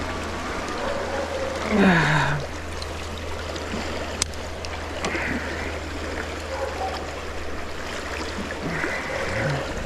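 Mountain trout stream running steadily. About two seconds in, a brief sound slides down in pitch, and a single sharp click comes a little after four seconds.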